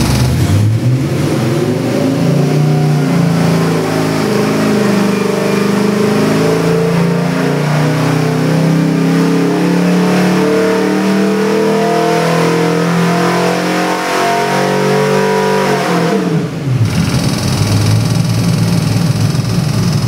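Chevy 383 cubic-inch small-block V8 stroker on an engine dyno, pulling up from idle under load in a sweep test, its pitch rising steadily for about fifteen seconds through roughly 4300 rpm. About 16 seconds in the revs drop sharply and it settles back to idle.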